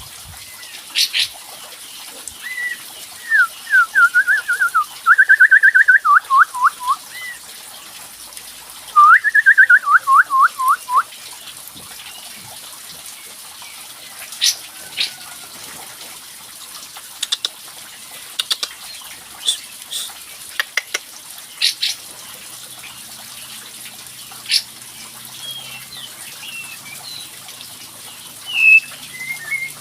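White-shouldered triller (kapas tembak) song: two loud trills of rapidly repeated notes that slide downward, followed by scattered short sharp chirps, over a steady hiss.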